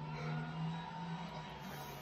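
Faint music with a steady low tone underneath.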